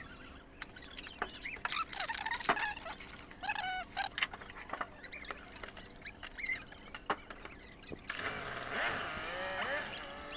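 Many short, high-pitched chirps and squeaks from small animals calling, scattered throughout, with a steady rush of noise lasting about two seconds near the end.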